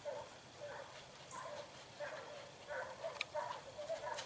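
Distant dogs barking over and over, sounding as if they have something cornered. A couple of sharp clicks come near the end.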